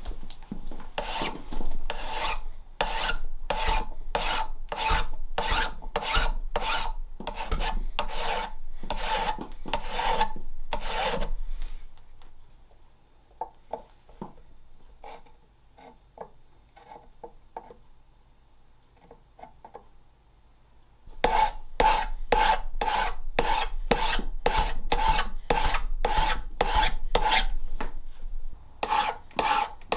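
Hand file rasping across the bevel of a forged O1 tool-steel hook tool, about two strokes a second. The filing stops for several seconds midway, leaving only a few faint taps, then starts again.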